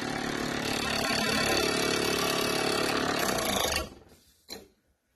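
Graphics card fan spinning with several blades missing, its unbalanced rotor making the card shake with a steady running noise, a little better balanced now that the blade opposite the broken gap is clipped. Just before four seconds in it stops abruptly as a hand grabs the fan, and a single short knock follows.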